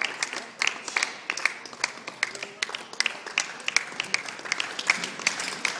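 Applause: many people clapping, with distinct individual claps standing out among them.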